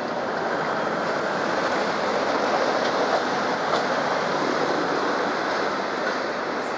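CSR passenger coaches rolling past on the rails, a steady rushing rumble of wheels on track with a few faint clicks.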